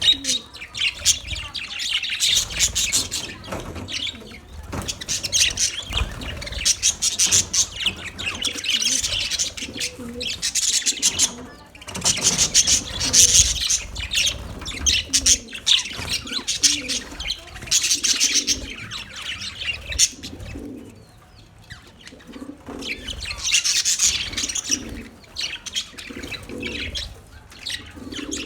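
Budgerigars chirping and warbling in busy bouts of rapid, high chirps, with a quieter lull about twenty seconds in.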